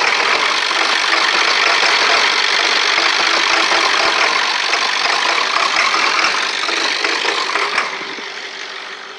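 Ford 7.3 L Power Stroke diesel engine running with a steady diesel clatter. Near the end it grows quieter, easing off over about a second.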